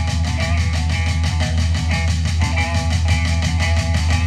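Rock music with guitar and drums, playing at a steady, driving beat.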